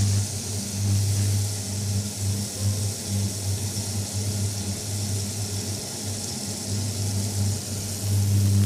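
Leg of lamb sizzling in oil in a hot stainless steel pot, an even high hiss. Under it is a low hum from the cooktop that comes and goes through the middle and is steadier near the start and end.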